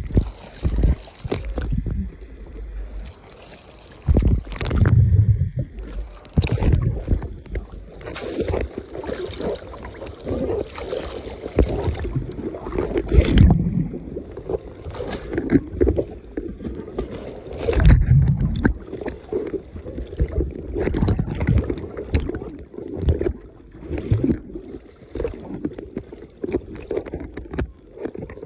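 Water splashing and sloshing, with wind buffeting the microphone, in uneven loud bursts.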